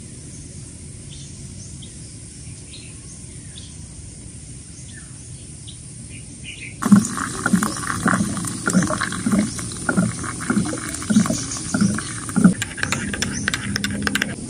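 Birds chirping faintly over a steady low hum. About seven seconds in, this gives way to louder sounds of coffee being made: water running from a water dispenser into a ceramic mug, then a metal spoon stirring and clinking against the mug.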